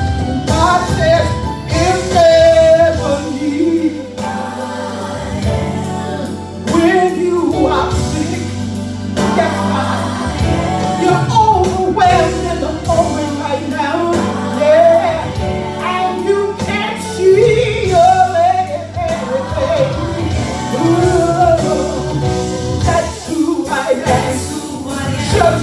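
Gospel music: a worship song sung with live band accompaniment, with singing that rises and falls over steady bass and keyboard.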